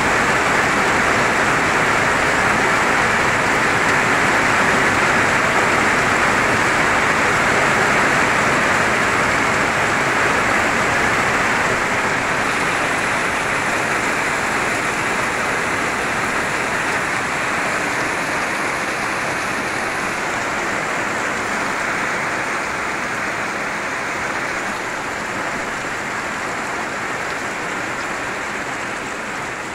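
Heavy rain pouring down steadily, a dense hiss of drops on the ground and puddles, slowly easing over the span.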